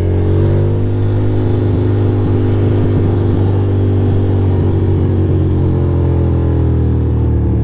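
2006 Ducati Monster 620's air-cooled L-twin engine running steadily under way.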